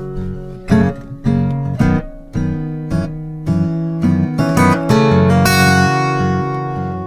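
Background music on acoustic guitar: plucked notes and strummed chords.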